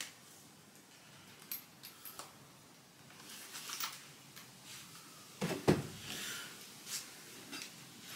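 Light clicks and clatter of tools being handled, with a louder double knock about five and a half seconds in.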